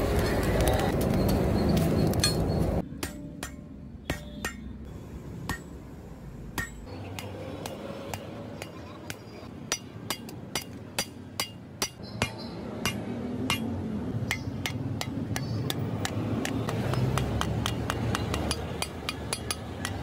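Hand hammer blows on a red-hot billhook blade on an anvil: many sharp metallic strikes with a short ring, spaced out at first and coming faster later on. The first few seconds are a steady rushing noise from the charcoal forge fire.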